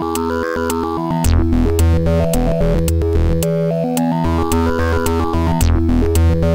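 Electronic background music with synth chords and a bass line, a rising arpeggio figure that repeats about every three seconds, and a steady beat.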